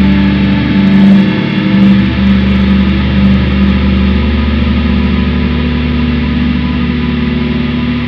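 Ambient drone music: dense, sustained tones held over a steady low drone, with no beat.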